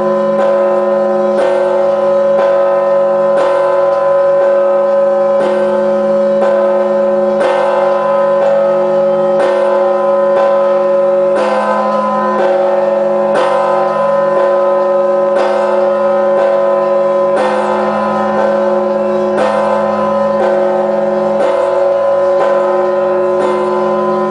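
The Kyiv-Pechersk Lavra's 7,150 kg All Saints church bell is tolled at a slow, steady tempo of about one stroke a second. Its deep hum rings on unbroken between strokes.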